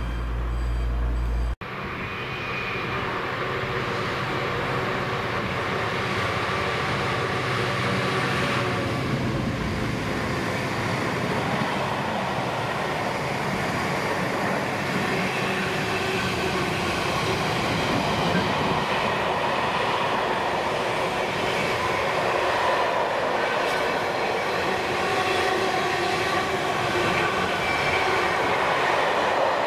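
Long intermodal container freight train rolling past on flat wagons: a steady rumble and rattle of wheels on rail, with a clickety-clack over the rail joints, growing slightly louder toward the end. It opens with a low diesel locomotive drone that cuts off abruptly about a second and a half in.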